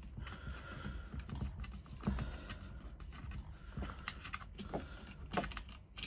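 A thin hand tool turning a small screw out of a servo motor's end housing: irregular light clicks, scrapes and knocks of metal on the screw and the housing.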